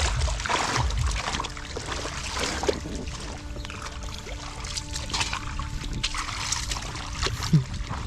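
Water splashing and sloshing in shallow muddy water, with scattered irregular splashes and a sharp splash near the end.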